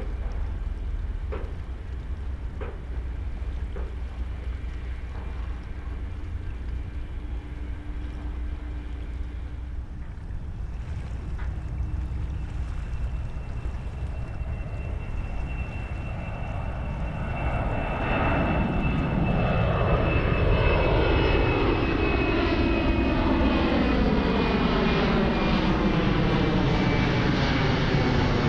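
Jet airliner's engines on takeoff and climb-out: a low distant rumble that swells sharply about two-thirds of the way in as the jet passes, with a high whine slowly falling in pitch over the noise.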